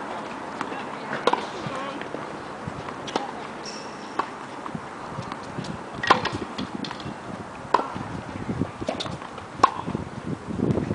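Tennis balls struck by a racket and bouncing on a hard court, sharp pops every second or so, the loudest about six, eight and nine and a half seconds in.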